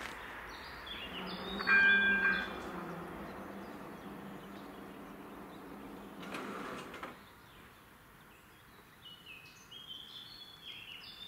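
Railway level-crossing barriers lifting: the barrier drive motor hums steadily for about six seconds and stops about seven seconds in, with a short loud tone about two seconds in. Birds chirp throughout.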